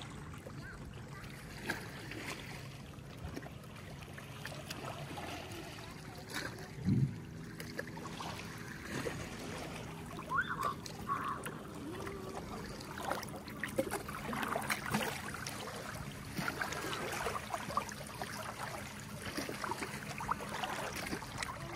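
Lake water lapping and splashing around a stand-up paddleboard, with scattered small splashes and one sharper splash about seven seconds in.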